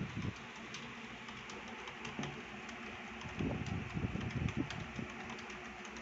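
Fast keystrokes on a computer keyboard during a timed typing test, steady short clicks over a constant fan-like hum. A low rumble comes in about three and a half seconds in and lasts just over a second.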